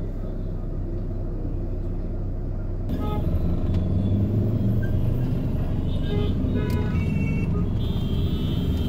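Motor traffic: a bus engine idling alongside with a steady low rumble, then, about three seconds in, louder road traffic of buses, cars and motorbikes running. Short horn beeps sound about two-thirds of the way through, and a longer horn near the end.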